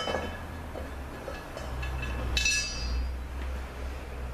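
A metal tool or part strikes metal once, a bit over two seconds in, and rings briefly before it fades. Under it runs a steady low hum.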